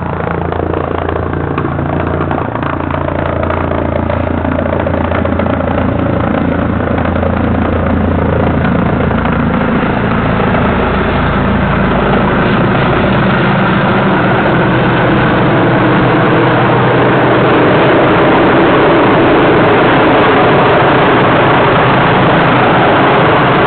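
Air ambulance helicopter coming in to land, its rotor and turbine noise growing steadily louder as it closes in overhead.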